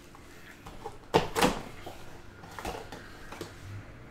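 Handling noise as a cardboard trading-card box is opened and a card in a hard clear plastic case is taken out: a few short knocks and clicks, the loudest two close together about a second in, then softer ones.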